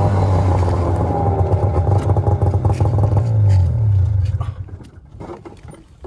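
Snowmobile engine running steadily, then fading out about four and a half seconds in, leaving a few faint clicks.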